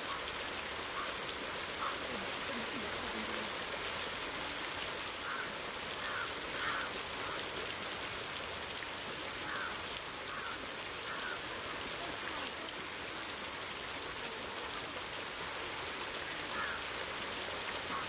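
Outdoor aviary ambience: a steady, even rushing noise with faint, short bird calls coming every few seconds.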